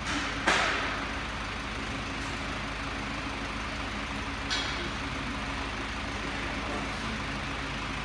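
Two sharp clunks about four seconds apart, the first louder: a 2017 Toyota Corolla's power door locks actuating as the car is locked and unlocked with the remote key. Under them a steady low mechanical hum.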